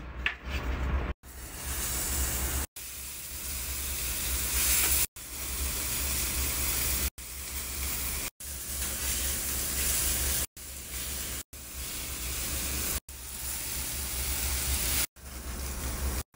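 Salmon fillets sizzling on a commercial flat-top griddle: a steady frying hiss over a low hum. The sound breaks off and starts again every one to two seconds.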